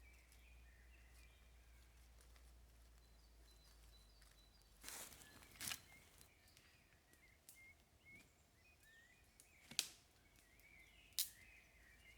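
Faint small-bird chirping in a forest, with a few sharp knocks or snaps: a pair about five seconds in, then single loud ones near ten and eleven seconds.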